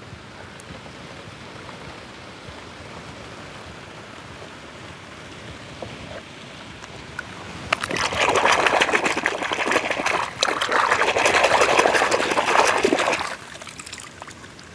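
A hand splashing and sloshing through shallow muddy water for about five seconds, starting about halfway through. Before that there is only a faint steady hiss.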